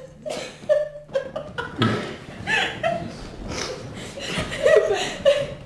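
Two women laughing in short bursts, with a few unworded voice sounds mixed in.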